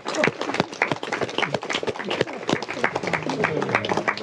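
A crowd clapping and applauding, with voices calling out among the claps.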